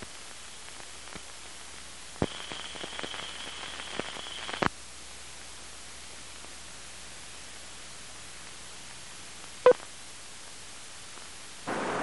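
Steady hiss from an old video tape transfer, with a couple of seconds of crackling clicks and a faint high whine about two seconds in. About ten seconds in, a single short beep sounds: the sync 'two-pop' of a film countdown leader.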